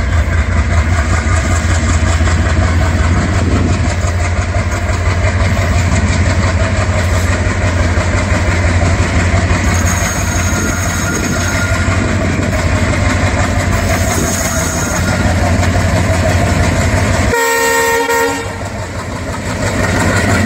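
Diesel locomotive hauling a passenger train, its engine running loud and steady with a deep throb as it approaches. Near the end comes a short horn blast of about a second, several tones sounding together.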